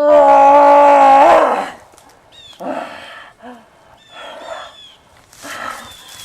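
A loud held cry, one voice held steady for about a second and a half and dropping in pitch as it ends, followed by quieter scuffling noises and a few short high chirps.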